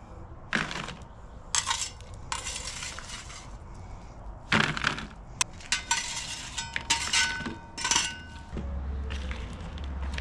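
Metal spatula scraping and clinking against a perforated metal grill pan as grilled vegetables are pushed off onto plates: a run of short scrapes and clinks, some with a brief metallic ring.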